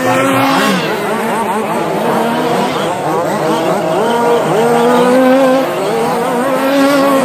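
Several radio-controlled short course trucks racing around the track, their motors overlapping and rising and falling in pitch as they speed up and slow down through the corners.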